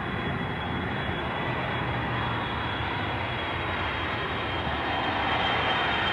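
A steady engine drone with a thin high whine running through it, growing a little louder after about five seconds.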